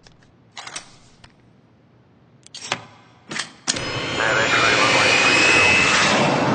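Several small sharp clicks and snaps of model parts being handled and fitted together. About three and a half seconds in, a loud jet engine sound sets in: a rushing roar with a high whine on top, rising slightly, for the model business jet.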